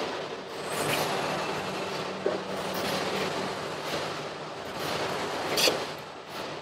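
Automated car production line machinery running: a steady mechanical din of robots and conveyors with a low hum, broken by a few short sharp clicks, the sharpest about five and a half seconds in.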